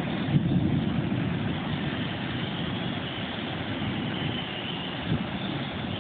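Storm wind gusting across the microphone: a low rumbling noise that swells and eases, strongest just after the start.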